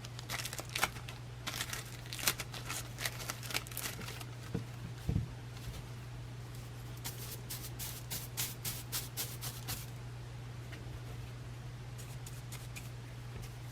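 Gold leaf and its backing paper crinkling and ticking in irregular clusters as they are handled in gilding work, with a soft thump about five seconds in, over a steady low hum.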